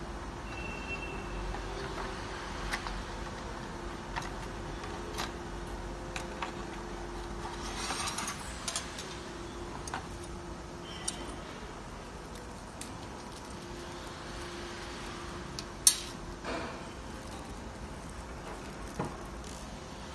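Metal parts and tools clinking and clicking as a chimney fan is fitted, with one sharp, louder click near the end, over a faint steady hum.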